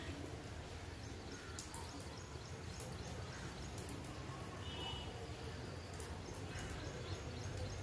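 Monsoon wind and rain outdoors: a steady low rumble under an even hiss, with a few faint bird chirps now and then.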